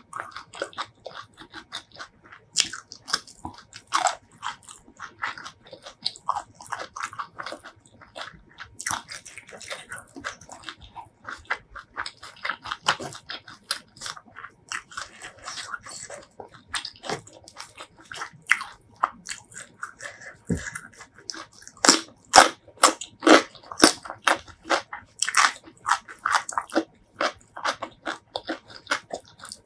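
Close-miked eating sounds: chewing of spicy shrimp salad and rice, full of quick wet mouth clicks and small crunches, growing louder and denser past the middle.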